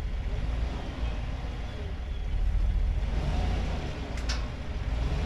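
A truck's engine running at low speed as the truck backs up, with a short sharp click about four seconds in.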